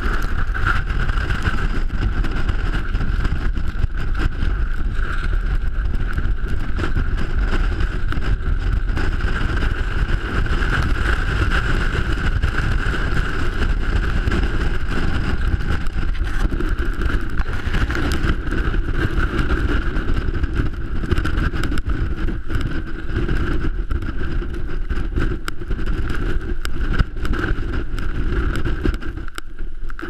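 Strong mountain wind buffeting the camera microphone, a loud steady rumble.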